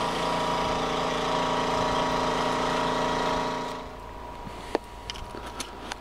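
A small engine running steadily at a constant speed, ending abruptly about four seconds in. A few faint clicks follow.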